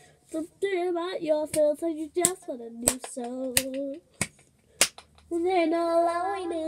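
A girl singing unaccompanied, holding and bending notes. Through the middle, about six sharp clicks keep a beat, roughly two-thirds of a second apart. Her singing stops for about a second and starts again near the end.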